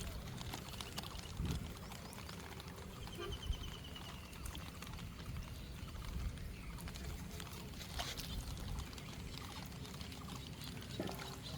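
Water trickling and splashing, with scattered small taps and a brief faint chirp about three seconds in.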